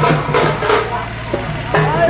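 Drums beating a steady, fast rhythm in festival music, thinning out briefly about a second in.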